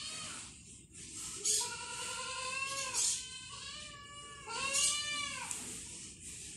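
Several drawn-out animal cries, each rising and then falling in pitch, the longest lasting about a second and a half.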